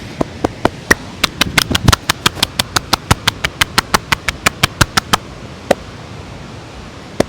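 Percussive massage strokes: the masseur's hands slapping in a fast, even rhythm of about six strikes a second. They stop about five seconds in, followed by two single slaps.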